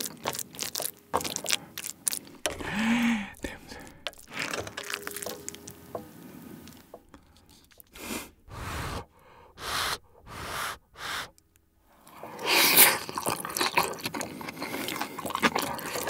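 Wooden spoon scraping and pressing fried rice across a nonstick electric griddle, with many short clicks. About halfway through come the close-miked wet chewing sounds of a mouthful of the rice in short separate bursts. Denser scraping on the griddle returns near the end.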